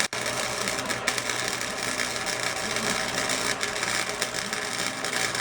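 Flux-core wire-feed welder arc crackling steadily as a bead is laid, with a momentary break right at the start.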